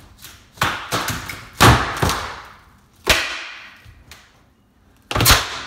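Laminate countertop being wrenched up by hand: a string of sharp cracks and thuds as the board and its particleboard core break loose, the loudest about a second and a half in.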